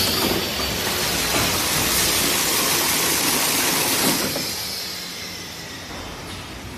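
Packaging machine running with a loud hiss of rushing air that starts suddenly, holds for about four seconds, then fades away.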